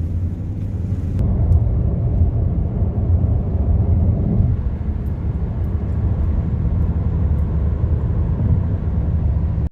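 Road and engine noise inside a moving car: a steady low rumble that cuts off suddenly at the end.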